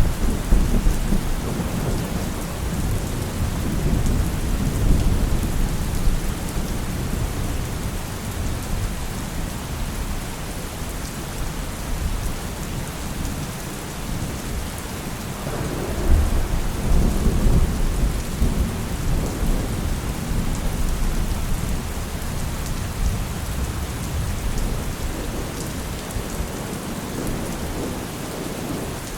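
Heavy rain falling steadily with rolling thunder: the tail of one rumble fades over the first few seconds, and a second long, low rumble swells up about fifteen seconds in and rolls on for several seconds before dying away.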